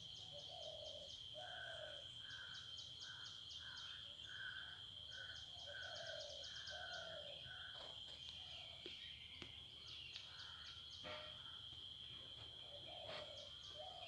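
Crickets trilling in one steady, high-pitched tone, with rhythmic runs of short repeated calls and ticks from another animal over it in the first half and again near the end.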